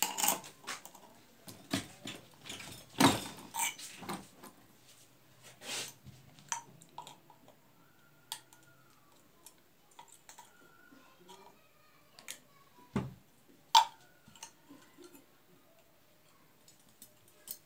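Irregular sharp metallic clicks and knocks from assembling LED bulb parts with a hand-lever punch press and pliers. The loudest come about three seconds in and near fourteen seconds in, with a quieter stretch in the middle.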